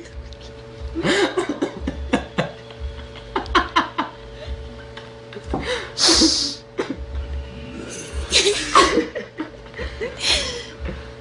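People laughing in several short bursts, over a faint steady hum.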